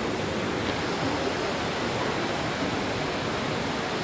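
Steady, even rushing ambient noise outdoors, with no single sound standing out.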